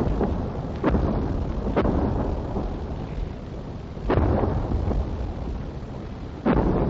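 Artillery fire in a 1944 wartime field recording: four heavy bangs, about a second in, near two seconds, at about four seconds and near the end, each trailing off in a long echo.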